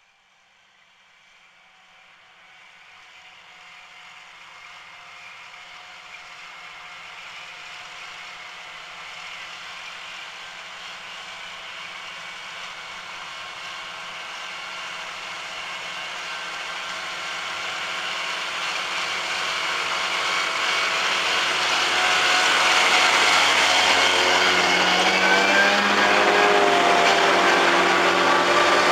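John Deere 6170M tractor running a front mower and 131 MoCo mower-conditioner while cutting grass. The engine and mower drone rise steadily from faint to loud as the rig approaches, and the engine pitch wavers in the last few seconds as it comes close.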